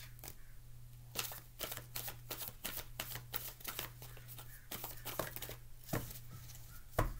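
A deck of oracle cards being shuffled by hand: a dense run of soft card flicks in the first few seconds, then sparser ones, with two sharper knocks near the end.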